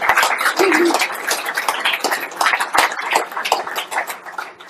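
Audience applause: many people clapping, with some voices mixed in, dying away near the end.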